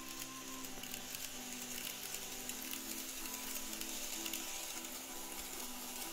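KATO N-scale 787 series model train running along plastic track with a fast ticking, rattling whir of wheels and motor, loudest as it passes close about four seconds in. Soft background music with a slow melody plays underneath.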